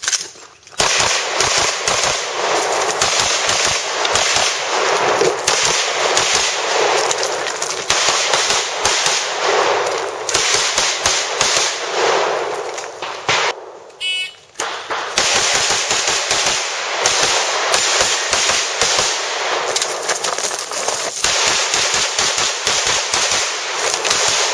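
Handguns fired in fast, continuous strings of shots during USPSA stage runs. About 14 seconds in, the firing stops for a moment, a shot timer's electronic start beep sounds, and another long fast string of shots follows.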